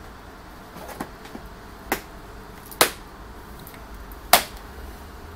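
Four sharp knocks of hard objects being set down or moved about in an open car boot, the last two the loudest.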